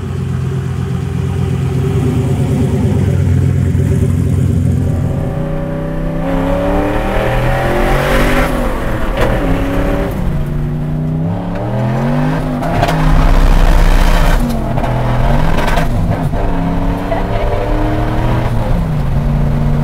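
Turbocharged 363 small-block Ford V8 in a 1970 Ford F-100 pickup, idling with a steady low rumble, then accelerating hard from about five seconds in. The pitch climbs and drops back several times as it pulls through the gears.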